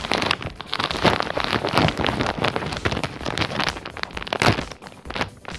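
Plastic packaging of a t-shirt pack crinkling and crackling as it is handled and pulled open by hand.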